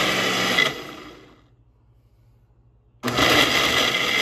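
Ninja personal blender running as it blends a smoothie. It winds down to a stop about a second in, then after a short pause starts up again abruptly near the end.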